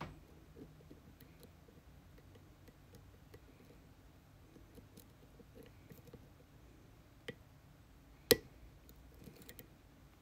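Lock pick and tension wrench working the pins of a pin-tumbler lock: faint scattered ticks and scrapes, with a sharp click just after the start, another about seven seconds in, and a louder one a second later.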